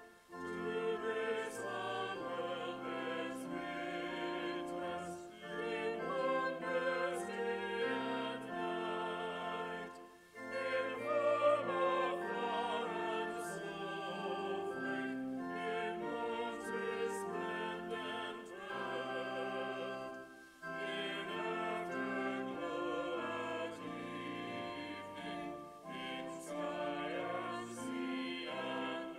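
Small choir singing a hymn, the voices held on long notes with vibrato, in phrases broken by short pauses about ten and twenty seconds in.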